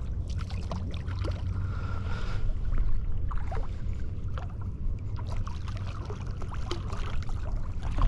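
Wind rumbling on the microphone, with scattered small splashes and sloshing of shallow water as a hooked striped bass is brought in to be landed.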